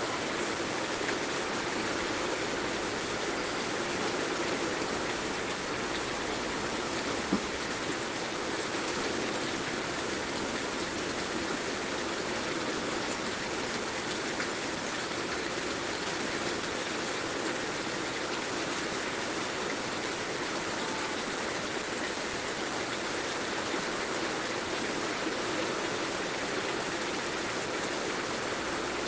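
Heavy rain falling steadily, a dense even hiss, with one brief tick about seven seconds in.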